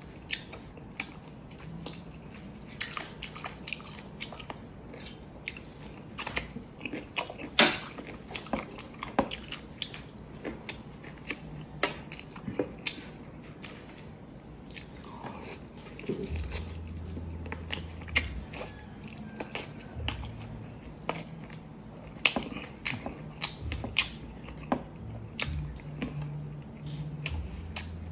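Close-up biting and chewing of saucy chicken adobo drumsticks: irregular sharp wet clicks and smacks of the mouth tearing meat from the bone. A low hum comes in about halfway through.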